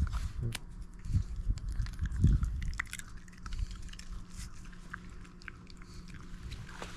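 Shiba Inu biting and chewing a crisp chicken-breast jerky treat. There is a run of sharp crunches over the first three seconds, then fainter, sparser chewing.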